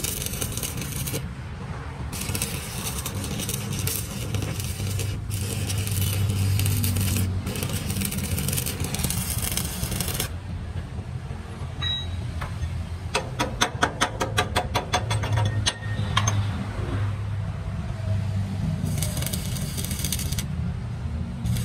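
Stick (arc) welding on a cracked truck chassis rail: the arc crackles and sizzles in runs of a few seconds, stopping briefly between them, over a steady low hum. Midway, while the arc is off, there is a quick series of sharp ticks.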